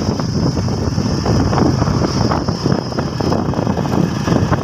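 Wind buffeting the microphone on a motorbike riding at speed, over the bike's engine and road noise, steady and loud.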